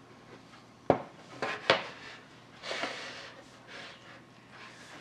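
Handling knocks and rubbing as a tablet is moved about on a hard surface: a sharp knock about a second in, two lighter knocks soon after, then a short scraping rub.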